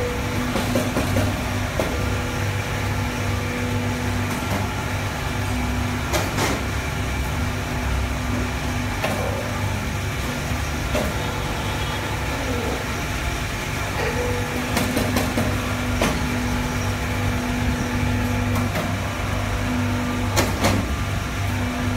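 A 150-ton hydraulic powder compacting press running, its hydraulic pump unit giving a steady low hum. A higher tone cuts in and out several times as the press cycles, and a few sharp clicks and knocks are scattered through.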